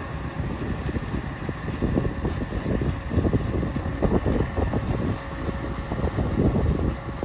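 RNLI tracked lifeboat launch tractor's engine running as the vehicle crawls over the shingle, with a faint steady whine above the rumble. Wind buffets the microphone irregularly throughout.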